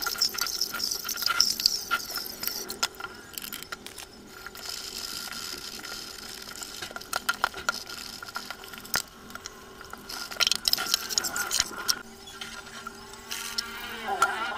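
Tap water running in spells into a stainless-steel sink while a rice cooker's metal inner pot is rinsed and scrubbed, with knocks and clinks of the pot against the sink. A spray bottle is squirted near the end.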